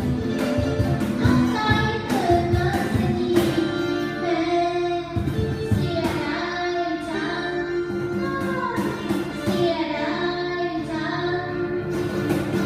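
A live band plays a Thai song while a singer carries the melody, with sustained and gliding sung notes over a steady drum beat.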